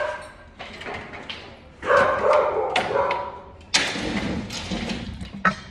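A dog barking several times in quick succession, followed by a stretch of quieter rustling noise.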